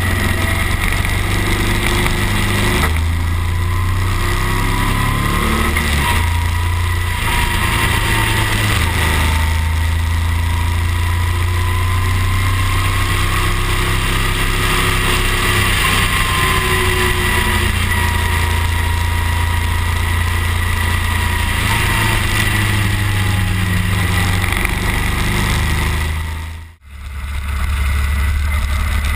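Motorcycle engine running under way, heard from on board the bike with wind rush. The engine note shifts a few times, and the sound drops out for a moment near the end.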